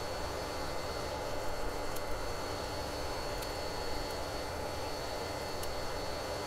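Steady whir of a small electric motor running continuously, with a thin high whine over an even hiss and a few faint ticks.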